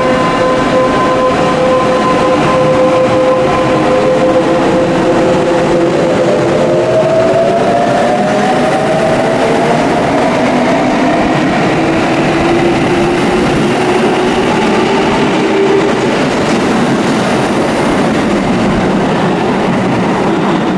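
Electric commuter train pulling out of the station: the motor inverter whine holds a steady pitch, then from about six seconds in rises in several tones as the train gathers speed, over the rumble of the wheels.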